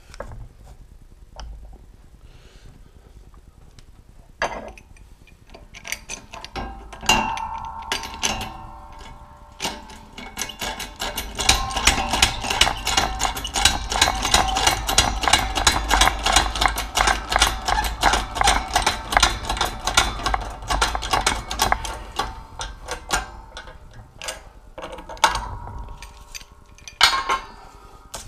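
Shop press being worked to force a square-drive chuck-key tip into a steel tube: a press fit. A few scattered clicks build to a long run of rapid metallic clicking with a ringing tone under it. The clicking dies away with a few last clicks near the end.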